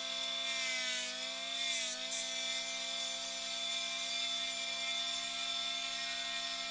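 Unimat lathe's electric motor running steadily with a whine, spinning an oak pen blank. Its pitch sags slightly twice, about one and two seconds in.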